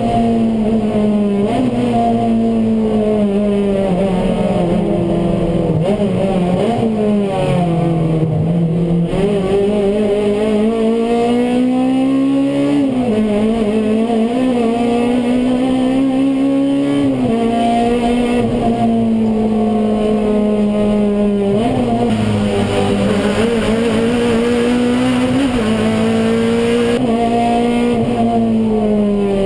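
Touring race car engine heard from inside the cockpit at racing speed, its pitch climbing under acceleration and dropping back sharply at each gear change several times, with a deeper lift and dip about seven to nine seconds in as it slows for a corner before pulling hard again.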